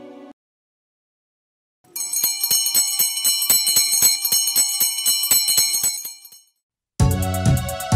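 Small bells jingling in a steady shake of about four strikes a second for about four seconds, fading out. Instrumental music with strong low notes starts about seven seconds in.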